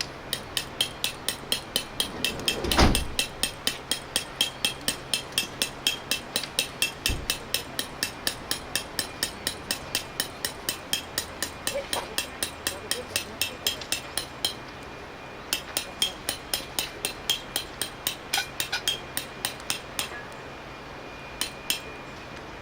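Rapid, even tapping, about three to four light, sharp strikes a second. There is a short break partway through, it stops near the end, and one heavier thump comes about three seconds in.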